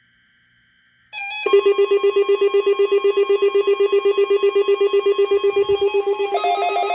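Weather radio receiver's alarm sounding, set off by the weekly alarm test: a loud, rapidly pulsing tone of about ten pulses a second that starts about a second in. Near the end a second, higher pulsing alarm tone joins it.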